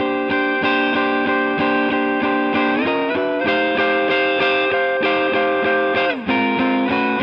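Electric guitar, a Gibson ES333 set up to ES-335 specs, played through a TonoMatic Bluesbaby amp with reverb: fingerpicked blues, ringing chords with bass notes and fills picked at a steady pulse. The chord slides up about three seconds in and slides back down about six seconds in.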